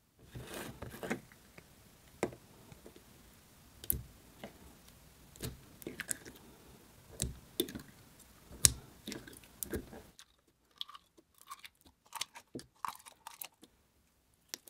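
Clear green slime with pearl beads being pulled out of its jar and stretched by hand, giving off irregular sticky pops and clicks, sparser near the end.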